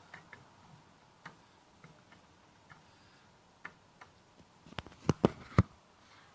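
Small scattered clicks and taps from objects being handled, then a quick cluster of four or five louder sharp knocks about five seconds in.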